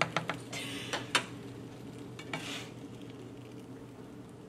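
Quesadilla frying in a nonstick pan with a light sizzle. Metal tongs click against the pan several times in the first second or so, with a couple of scraping sounds as the quesadilla is moved.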